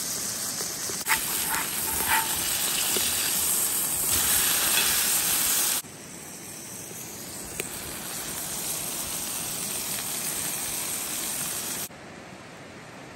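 Fish sizzling in a cast iron skillet over a wood-fired brick rocket stove: a steady hiss with a few sharp pops in the first couple of seconds. The hiss drops abruptly to a quieter level about six seconds in, and again near the end.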